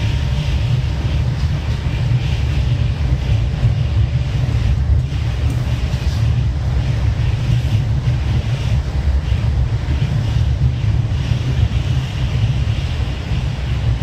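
Yurikamome 7000-series rubber-tyred automated guideway train running along its concrete guideway, heard from inside the car as a steady low rumble of tyres and running gear.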